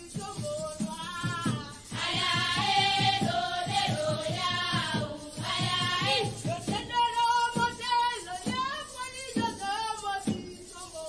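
A group of schoolgirls singing a traditional Luo dodo song together in chorus, over a steady percussive beat.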